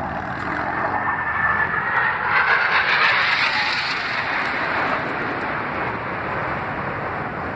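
Jet roar from Blue Angels F/A-18 Hornets passing through the sky, swelling to its loudest about three seconds in and then easing off.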